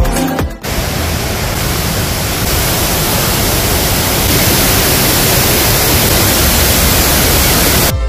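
Steady rushing noise of a waterfall in heavy flow, close up. It starts just after a snatch of electronic music and cuts off suddenly near the end.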